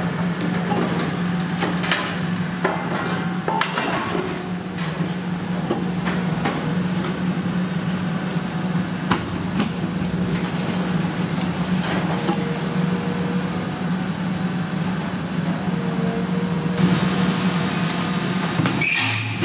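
Volvo EC480E high-reach demolition excavator's diesel engine running steadily while its demolition tool tears into a steel silo, with irregular metal bangs, cracks and crunches. A couple of brief metal squeals come in the second half.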